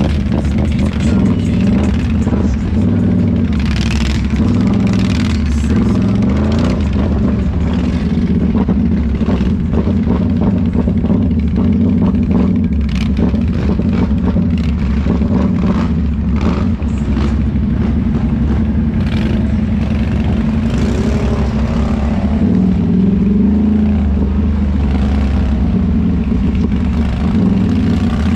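Can-Am ATV engine running under way, its pitch rising and falling with the throttle, with clatter and buffeting over the steady drone.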